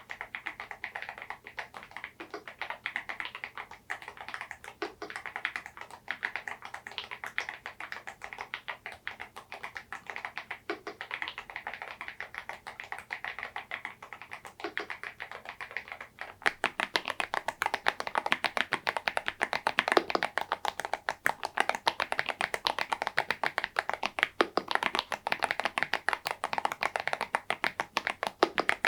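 Fast, continuous typing on an EPOMAKER Dynatab 75X mechanical keyboard fitted with tuned (modded) KTT Macaron Blue tactile switches and KDA-profile keycaps: a dense stream of key clicks. A little over halfway in, the typing turns louder and brighter.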